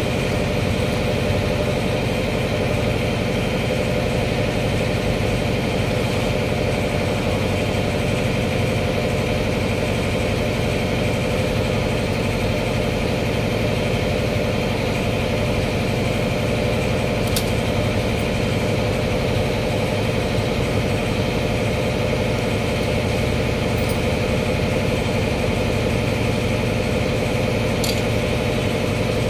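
A motor running steadily with an even, unchanging hum. A couple of faint clicks come in the second half.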